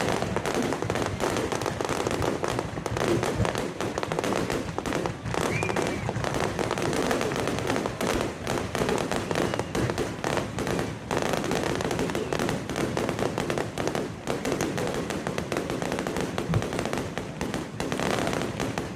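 Fireworks bursting in rapid, overlapping succession: a dense, unbroken run of bangs and crackles.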